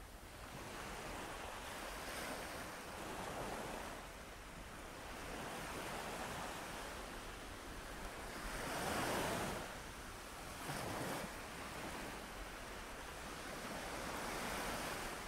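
Ocean waves washing onto a shore, a soft hiss that swells and ebbs every few seconds, with the biggest surge about nine seconds in.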